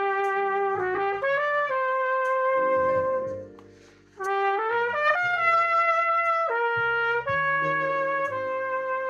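Trumpet played through a French horn mouthpiece on a horn-to-trumpet adapter: a slow melody of held notes, with a short breath break about four seconds in.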